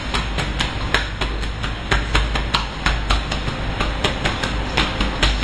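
Rapid, irregular percussive slaps, about five a second: hands striking a person's back in a chopping, tapping massage, over a steady low rumble.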